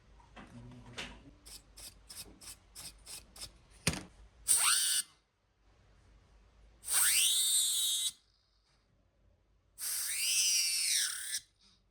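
A run of light clicks, about three a second, then a small high-speed motor with rushing air runs in three short bursts. Each burst has a whine that rises quickly as the motor spins up.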